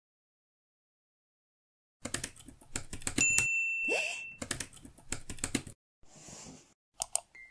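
Rapid clicking of laptop keyboard typing that starts about two seconds in, with a bright bell-like chime partway through.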